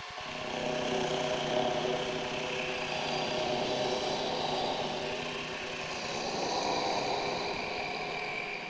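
A steady, engine-like mechanical drone made of many tones at once, swelling in at the start and fading out near the end.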